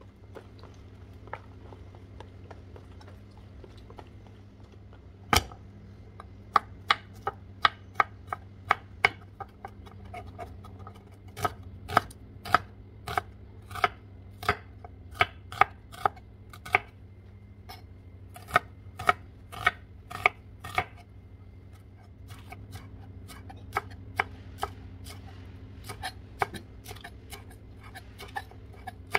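Chef's knife chopping onion on a wooden cutting board: sharp knocks of the blade on the board, about two or three a second, starting about five seconds in. The knocks turn fainter in the last several seconds as spring onions are sliced.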